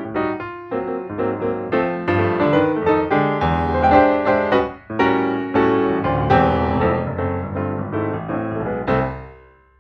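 Background piano music playing a string of notes and chords, fading out near the end.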